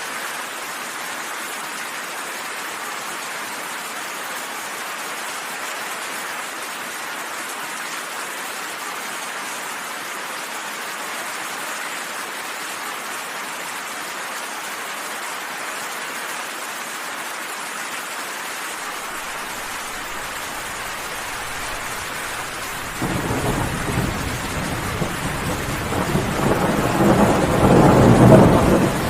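Steady rain falling. About three quarters of the way through, a low rumble of thunder comes in suddenly and builds louder to the end.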